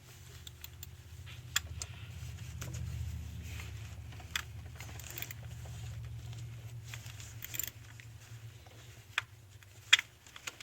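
Hand tools and metal parts clicking and clinking during fiddly work on a fastener in an engine bay, with a few sharp clicks, the loudest near the end, over a low steady hum.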